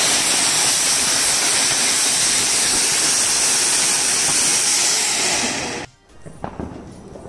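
Flowerpot (anar) fountain fireworks hissing steadily as they shower sparks, cutting off suddenly about six seconds in, after which only quiet outdoor background remains.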